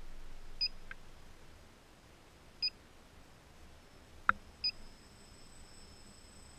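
Short high electronic beeps, one every two seconds, over a faint quiet background. There is a single sharp knock a little past the middle, and a faint steady high whine comes in during the second half.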